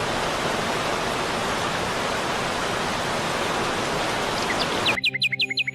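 A steady, even rushing hiss like running water. It cuts off sharply near the end, where a bird gives a quick run of falling chirps over background music.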